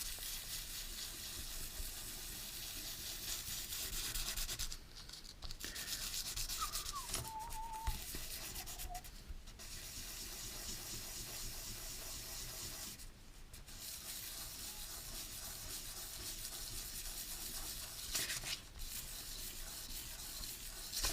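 Small metal ball-differential plate rubbed back and forth on fine sandpaper: a steady rasping scrape with a few short pauses, as the plate's face is sanded smooth.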